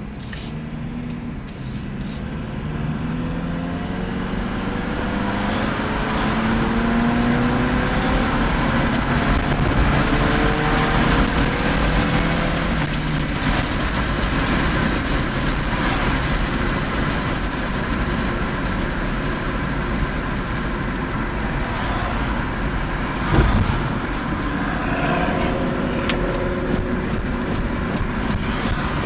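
The four-cylinder engine of a 2009 Honda CR-V pulls under hard acceleration, its note rising steadily for about twelve seconds, then settles into a steady cruise with road noise. There is a single short knock about 23 seconds in.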